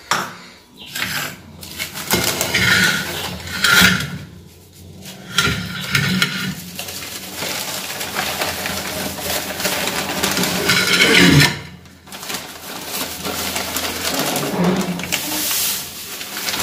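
Steel pan and bowl knocking and clinking, with newspaper rustling and scraping as sieved flour is swept together by hand and poured off the paper into the pan.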